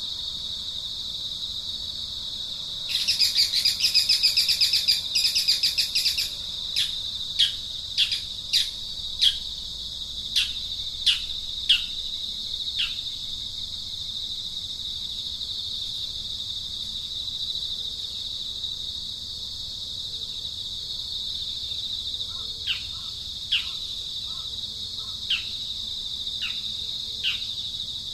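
A steady high insect trill, like crickets, with a burst of rapid bird twittering about three seconds in, then a string of short falling chirps, about nine, and a few more near the end.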